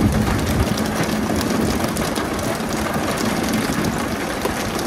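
Fishing boat's engine running steadily with a low hum, under a loud wash of noise and scattered sharp clicks and knocks.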